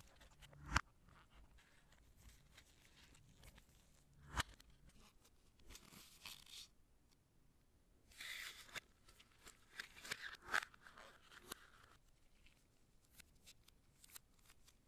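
Quiet handling of smartwatch packaging during an unboxing: two sharp clicks or taps, a few seconds apart, and short bursts of rustling and peeling, like plastic film or paper wrapping.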